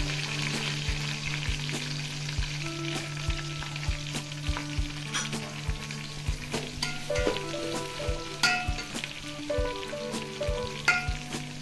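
Freshly added sliced onions sizzling in hot oil and ghee in an aluminium pot, stirred with a metal slotted ladle that clicks and scrapes against the pot. The sizzle is loudest at first and eases off.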